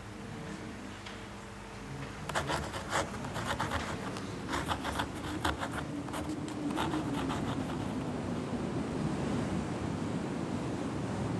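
Rough sea and wind: a steady wash of surf noise builds up and grows louder through the second half. Before it, a spell of crisp rustling clicks comes over a faint low hum.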